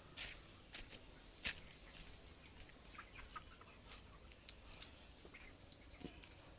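Chickens clucking faintly, mixed with scattered short clicks and scratches; the sharpest click comes about a second and a half in.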